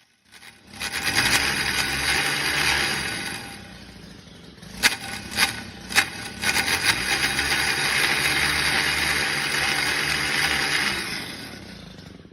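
Stihl FS 91 R string trimmer engine running and being throttled up twice, with a drop back toward idle in between, while the repaired shaft drives the head. A few sharp knocks come during the idle.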